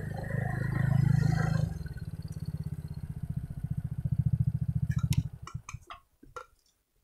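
Motorcycle engine running, settling about two seconds in to a fast, even chugging like an idle. It falls away about five seconds in, leaving a few scattered clicks.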